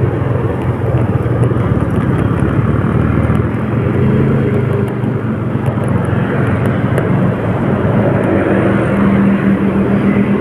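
Steady engine and road noise from a vehicle under way, a constant low hum under a noisy rush.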